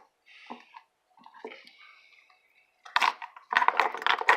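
Slime being squished and mixed: wet, crackly squelching and clicking that starts about three seconds in, after a few faint scattered sounds.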